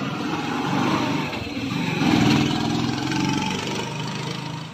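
A motor engine running close by, swelling to its loudest about two seconds in and easing off again.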